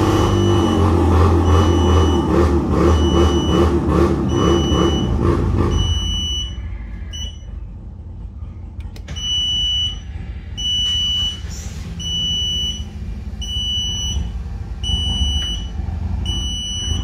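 E-stopp electric parking brake actuator motor running for about six seconds as it pulls the brake on, then stopping. A short high electronic beep repeats about once a second throughout.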